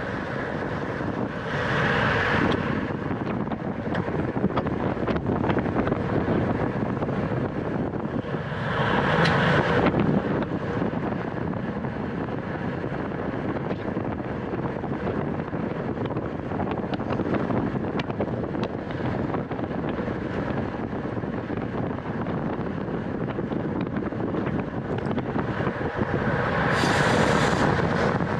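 Wind rushing over a racing cyclist's on-bike camera microphone at speed, with three louder swells.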